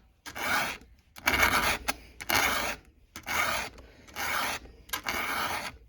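A 13/64-inch round file rasping back and forth across a steel chainsaw chain tooth, about one stroke a second, six strokes in all. It is re-cutting a dull, squared-off cutter to bring back its angle and point.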